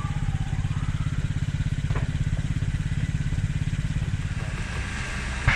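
A nearby engine running steadily with a fast, even pulse, with a sharp knock near the end.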